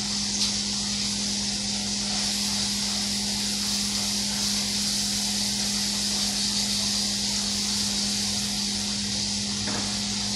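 Food sizzling steadily in a frying pan on a gas burner, an even high hiss, with a constant low hum underneath.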